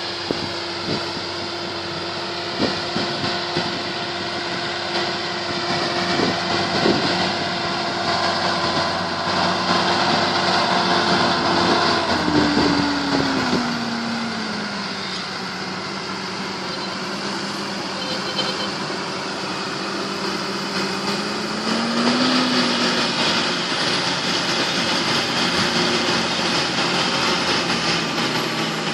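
John Deere tractor's diesel engine running steadily under load while pulling a plough. Its note drops about halfway through, settles lower, then lifts briefly near the end. A few knocks are heard in the first seconds.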